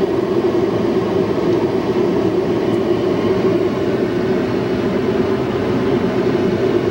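Automatic car wash machinery running steadily, heard from inside the car as a loud, even noise with no breaks, during the pre-soak stage.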